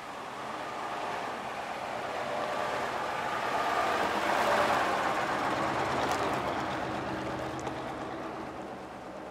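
A vintage bus driving past: its engine's steady run and rushing noise swell as it approaches, peak about four and a half seconds in as it passes close by, then fade as it pulls away.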